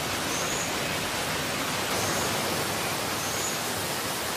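Steady rushing of water in a rain-soaked forest, an even hiss that does not let up, with three faint high chirps over it.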